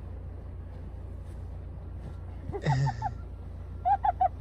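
A person's short cry about two and a half seconds in, then quick bursts of breathy laughter near the end, over a steady low rumble.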